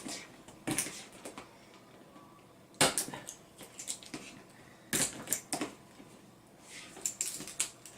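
A set of keys being jabbed and dragged across the packing tape of a cardboard box to cut it open, in short rasping strokes a second or two apart; the keys are not cutting through well.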